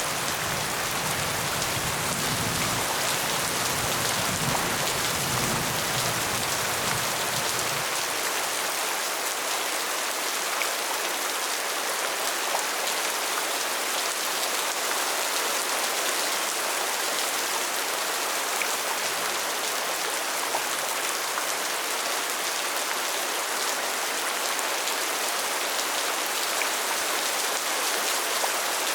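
Steady rain falling, a dense even hiss with scattered close drop ticks. A low rumble underneath stops about eight seconds in.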